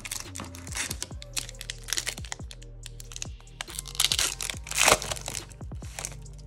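Crinkling and crackling of a booster pack wrapper and trading cards being handled, in irregular bursts with sharp clicks, loudest about four to five seconds in. Background electronic music with a deep beat runs underneath.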